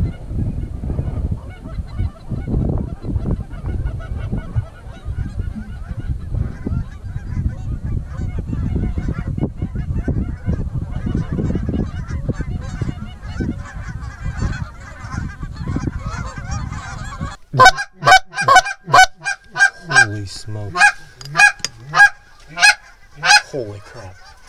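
Geese honking: faint calls from approaching flocks over a low rumble, then, about two-thirds of the way in, a run of loud, close honks, about a dozen in six seconds.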